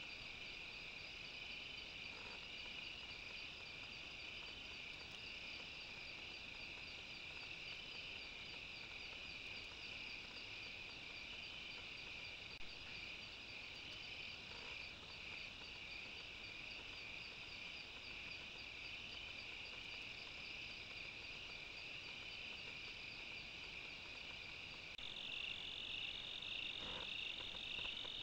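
Night chorus of crickets and other insects, a steady high trilling with a fast pulsing in it. Near the end the chorus changes to a louder, slightly lower, even trill.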